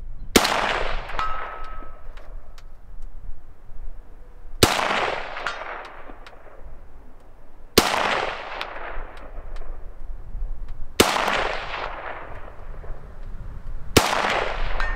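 Romanian WASR-10 UF underfolder AK rifle in 7.62×39 firing five single shots, about three to four seconds apart, each followed by a long echoing decay.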